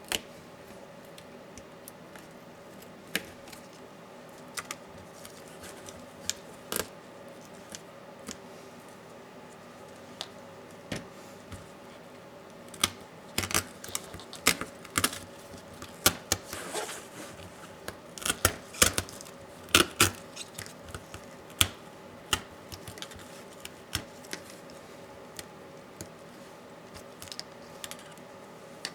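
Small sharp clicks, taps and scrapes of laptop parts being pried and handled by hand, thickest in the middle, over a faint steady hum.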